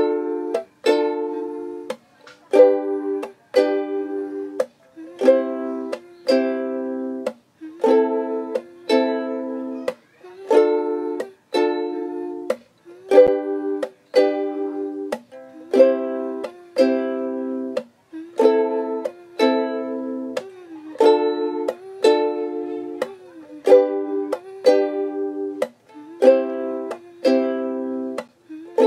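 Ukulele strummed in a steady repeating down, tap, up, tap pattern, changing between Dm, G, C and Am chords. The strums come in even groups with short gaps between them.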